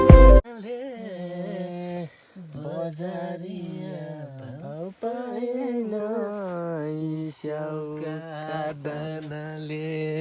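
A single voice singing a slow unaccompanied melody, holding long notes that slide up and down in pitch, with short breaks between phrases. A loud music track cuts off about half a second in.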